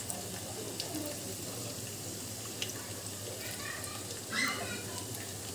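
Batter-coated chicken pieces deep-frying in hot oil in a kadhai: a steady sizzle with a few scattered small pops.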